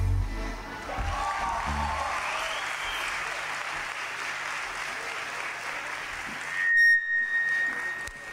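Festival crowd applauding and cheering as the band's last note cuts off at the start. A single high, steady whistle tone comes in near the end and holds for over a second.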